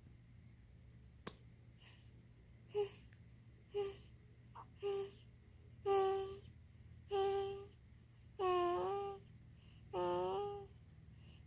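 A baby making a string of short, high-pitched hums and coos while eating, about eight in a row. Each lasts up to a second, with a slight bend in pitch, and they come roughly a second apart.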